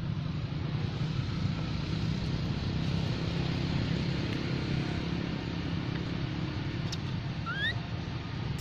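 A steady low rumble of background noise, with one short, rising squeak about seven and a half seconds in.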